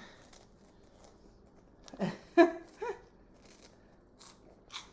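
Crisp cinnamon sugar puff snacks being crunched and their bag rustling, a few sharp crackles near the end, with a short voiced sound about two seconds in.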